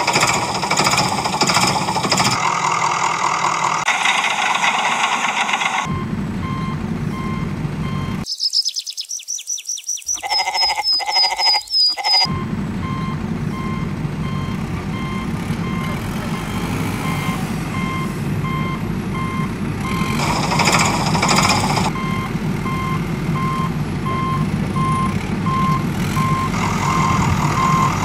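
Truck reversing alarm beeping at an even pace over a low engine rumble, broken about a third of the way in by a few seconds of a different sound with quick high chirps.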